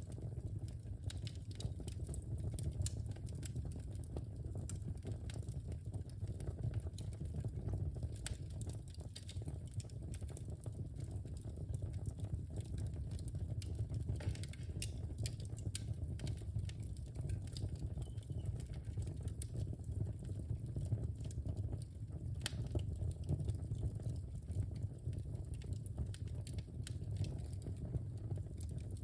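Wood fire in a fireplace burning with a steady low rumble of flames and scattered small crackles and pops, one sharper snap near the end.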